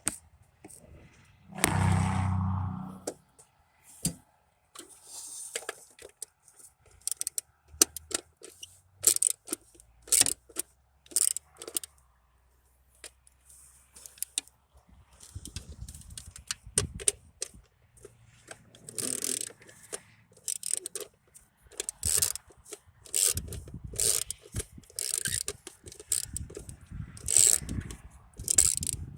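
Irregular clicks, knocks and scrapes of hard objects being handled, with a louder dull thump about two seconds in.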